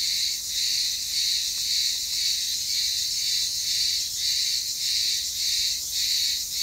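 A loud, shrill chorus of summer cicadas (cırcır böceği) singing all at once, pulsing a little under twice a second.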